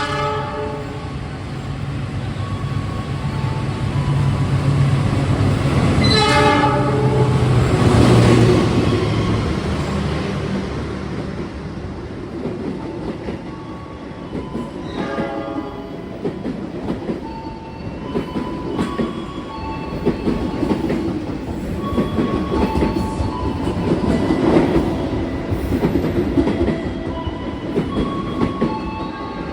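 A train passing a railway level crossing: its horn sounds three short times, near the start, about six seconds in and about fifteen seconds in, over the rumble of the approaching train. The wheels then clatter over the rail joints as the cars roll by.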